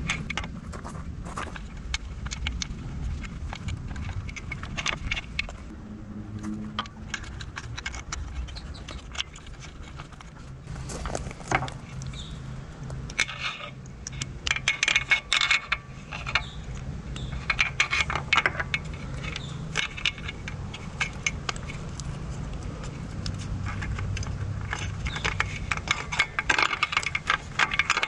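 Electrical cables and plastic connectors rattling, clicking and scraping as they are handled inside an e-bike's down-tube battery compartment, in scattered clusters of small clicks.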